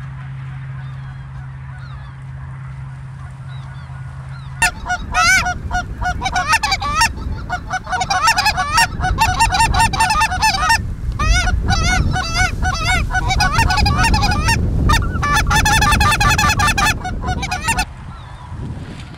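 A flock of geese calling, a dense chorus of honks and yelps that starts suddenly about four and a half seconds in and runs until shortly before the end. Before it there is only a low steady hum.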